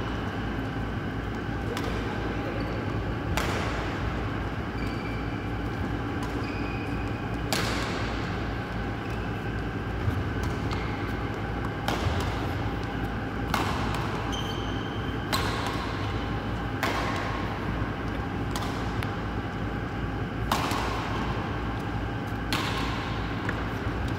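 Badminton racket striking shuttlecocks in a multi-shuttle feeding drill: a sharp hit about every one and a half to two seconds, around a dozen in all.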